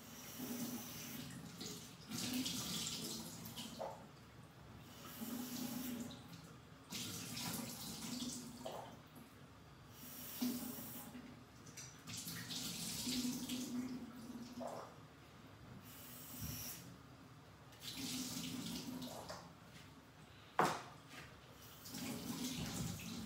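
Kitchen tap running into a stainless-steel sink while something is rinsed by hand, the water splashing in bursts of one to two seconds with short pauses between. A single sharp knock sounds near the end.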